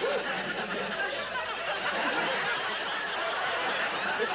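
Studio audience laughing, a dense crowd laugh held at an even level throughout.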